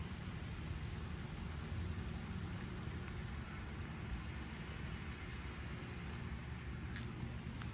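Outdoor ambience: a steady low rumble and hiss, with faint, short high chirps scattered throughout and a couple of sharp clicks near the end.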